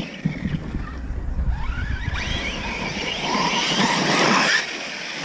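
Brushless electric motors of large 8S RC trucks whining up and down in pitch as they are driven hard over dirt, getting louder and then dropping off about four and a half seconds in.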